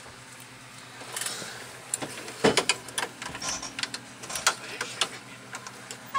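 A run of sharp clicks and knocks from switches and levers being worked in a Boeing 747 cockpit, starting about two seconds in, with the loudest knock about half a second later. A steady low hum runs underneath.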